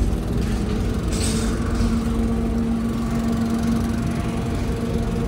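An engine idling with a steady hum over a low rumble, and a brief hiss about a second in.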